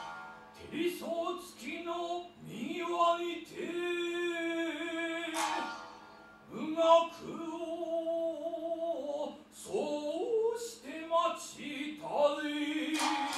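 Biwa-gatari chanting: a male voice sings long held notes that scoop upward into pitch, with a couple of sharp plucked biwa strikes between phrases.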